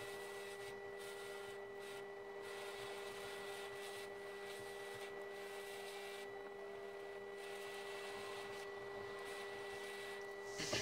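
A steady electrical hum with a thin high whine over a faint hiss, unchanging throughout, with a brief rise in hiss near the end.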